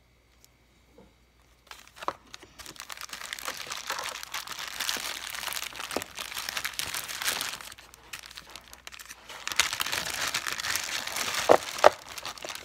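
Packing material crinkling and rustling as locks are unwrapped from a package, starting about two seconds in, with a brief lull partway through and a couple of sharp clicks near the end.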